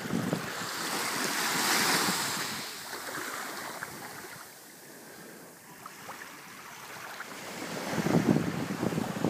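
Small waves washing onto a sandy beach, the surf hiss swelling about two seconds in and then easing off. Wind gusts buffet the microphone near the end.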